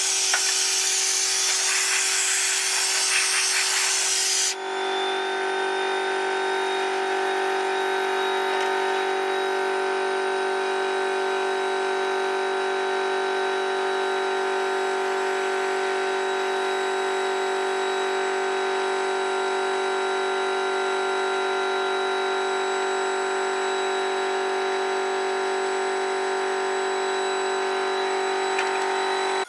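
Electric power tool motor running at a steady speed, with a harsh abrasive scrubbing noise over it for the first four or five seconds, typical of a wheel or brush working metal. After that the motor runs on alone with an even hum, then cuts off abruptly at the end.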